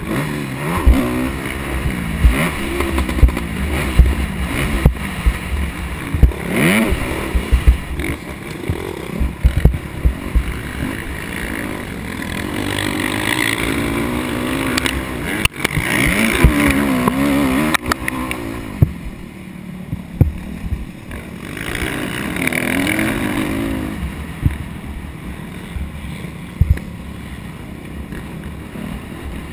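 Motocross dirt bike engine heard from the rider's helmet camera, revving up and dropping back over and over as the rider works the throttle around the track, with sharp knocks over the first third or so. The engine eases off for a couple of seconds past the middle, then revs up again.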